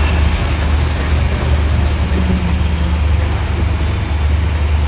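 An engine idling, a steady low hum.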